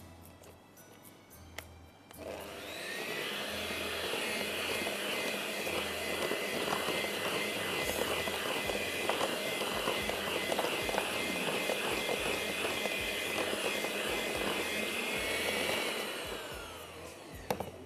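Small electric kitchen appliance motor spinning up, running steadily with scattered clicks for about fourteen seconds, then winding down.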